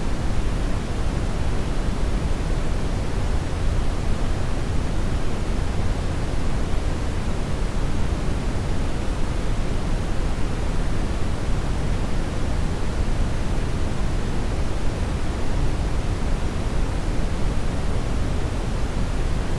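Steady synthetic noise signal: an unchanging, even rushing hiss with no events or rhythm, its weight heaviest in the low end and thinning towards the treble.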